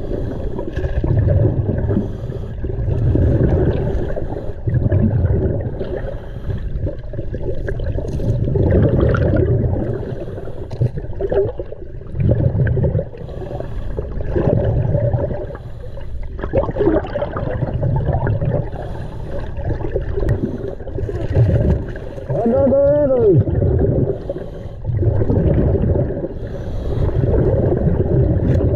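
Scuba diver's regulator breathing underwater: the rumble of exhaled bubbles swelling and fading every few seconds. A brief wavering tone sounds about three-quarters of the way through.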